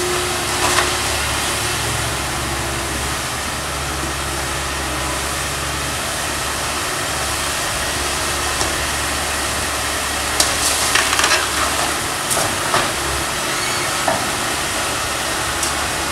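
Komatsu PC160LC excavator's diesel engine running steadily under a constant hiss, with a cluster of sharp cracks and snaps about two-thirds of the way through as the demolition pole breaks into the wooden framing of a house.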